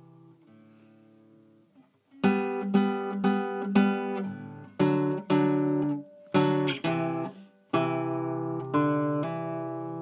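Background music on acoustic guitar: a few quiet notes, then strummed chords from about two seconds in, each left to ring out.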